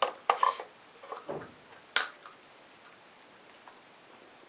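Wooden flaps, lids and pegs of a Pauli's Commander dog puzzle toy clacking as a dog noses and flips them: a quick cluster of sharp wooden knocks at the start, a few softer ones about a second in and one more at two seconds.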